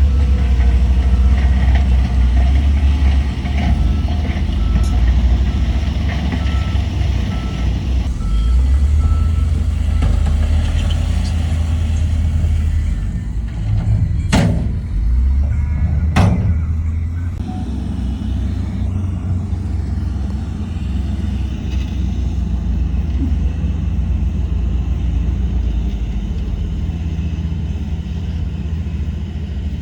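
Heavy diesel machinery running steadily with a deep engine drone. A reversing alarm beeps about once a second, stopping about a third of the way in, and around the middle two sharp hisses of air brakes sound a couple of seconds apart.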